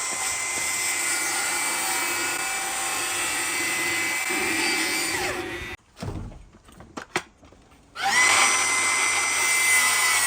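Milwaukee 18V FUEL 7-1/4-inch cordless circular saw running with a steady high whine, which winds down and stops a little past halfway. After about two seconds with a few light clicks, the saw starts up again, its pitch rising quickly, then runs steadily.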